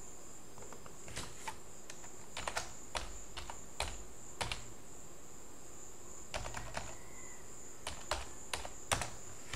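Computer keyboard keys clicking in scattered keystrokes, some in quick runs of two or three, as a name is typed in. A faint steady high-pitched whine runs behind them.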